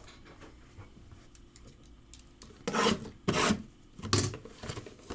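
Trading card box being handled and opened by hand: faint rustling, then three louder scraping rubs of cardboard and wrapper, starting about two and a half seconds in.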